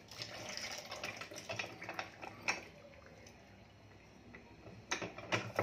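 Manual lever-arm citrus press being worked to squeeze oranges: irregular clicks and knocks of the metal lever and press cone, loudest as a couple of sharp knocks near the end.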